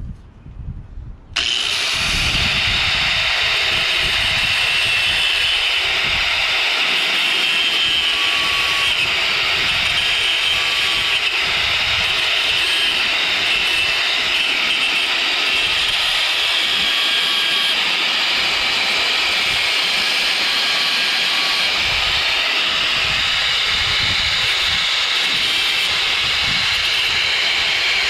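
Corded angle grinder switching on about a second in and then running steadily, its disc grinding metal off the push mower's blade hub to cut down a diameter that is too wide to fit.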